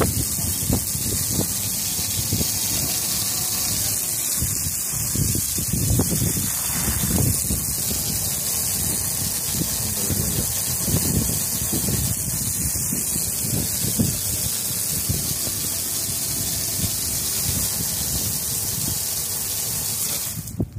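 Water spraying and splashing onto a boat's fiberglass deck as a steady hiss, with wind gusting on the microphone.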